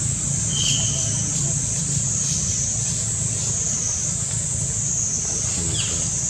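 Steady outdoor ambience: a high insect drone that swells and fades slowly, over a low steady rumble like distant traffic, with a short chirp about a second in and another near the end.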